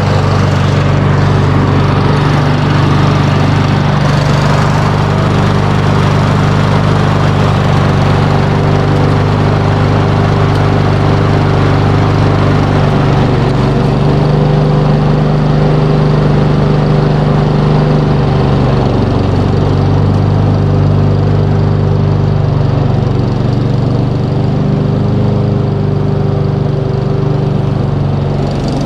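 Brand-new Honda HRX217VKA lawn mower engine running steadily at speed, not cutting grass, on its first run after starting.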